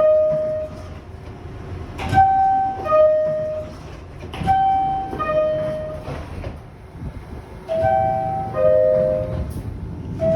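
New York City subway car door chime sounding three times, about two and a half seconds apart: each a high-then-low two-note 'ding-dong' with a click at its start, the last pair a little lower. It is the warning that the doors are about to close.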